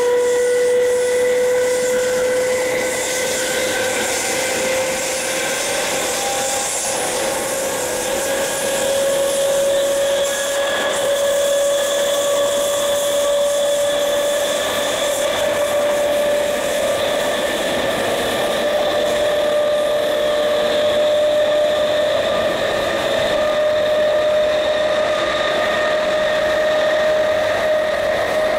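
GEC G315BZ DC traction motors of a British Rail Class 317 electric multiple unit whining under power, the pitch rising slowly and steadily as the train gains speed, over a steady hiss of running noise.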